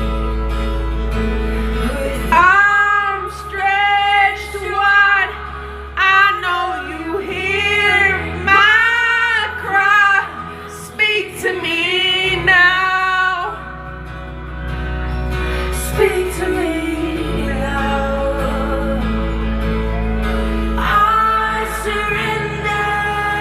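A song with a sung vocal over a sustained accompaniment. The voice sings through the first half, drops out for a stretch of instrumental, and comes back in near the end.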